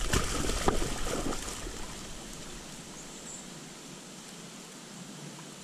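A black Labrador retriever splashing into a pond and swimming out. The sloshing is loudest in the first second or so, then fades to faint lapping water.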